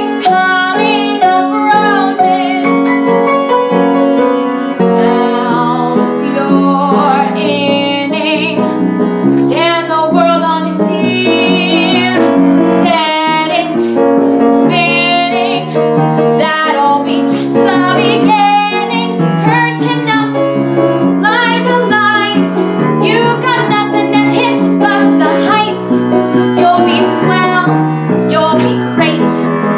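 A young female vocalist singing a Broadway show tune in full voice with vibrato, accompanied by piano.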